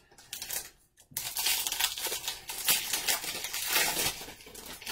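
A 2020 Topps Update baseball card pack being torn open and its wrapper crinkled: a few light clicks, then a dense crackling from about a second in that fades near the end.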